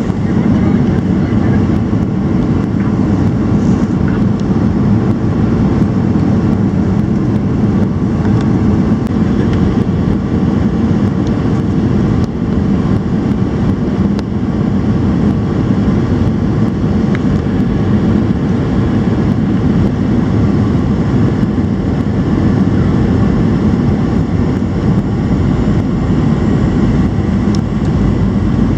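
Steady cabin drone of a Boeing 737 in flight: its CFM56 turbofan engines and the airflow over the fuselage, with a faint steady tone in the hum.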